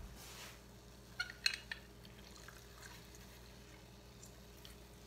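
Plastic handheld lemon squeezer being handled, with a few sharp clicks about a second and a half in, then faint drips of lemon juice falling into a saucepan of sauce.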